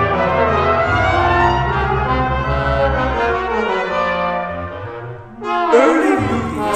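Brass-led background music. It fades away about five seconds in, then a louder passage with wavering, sliding pitches starts abruptly.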